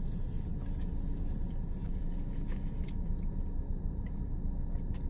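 Steady low rumble of a parked car running, heard inside its cabin, with a few faint clicks and a sip through a straw near the end.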